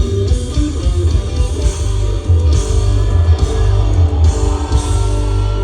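Rock band playing live: electric guitar over bass and drums, loud, stopping abruptly at the end.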